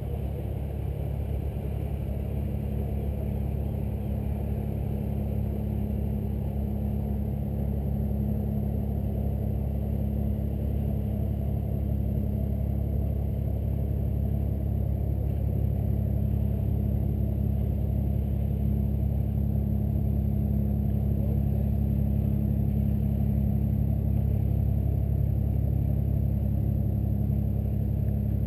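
Low, steady drone of a passing boat's engine, a deep hum that grows slightly louder over the stretch.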